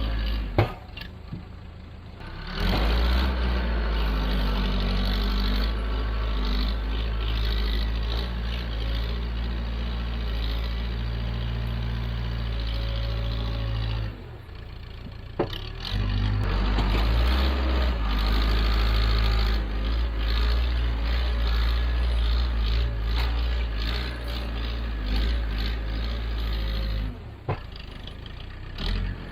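Diesel engine of heavy farm equipment running hard while digging and moving wet dirt, with a few sharp clanks. The engine sound breaks off abruptly three times and comes back.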